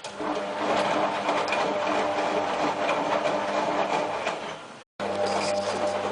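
Whirlpool AWM4066 front-loading washing machine running, a mechanical hum with rattle that starts abruptly. It cuts out to silence for a moment about five seconds in, then comes back with a deeper hum.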